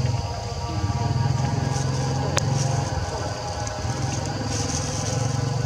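An engine running steadily, with a single sharp click about two and a half seconds in.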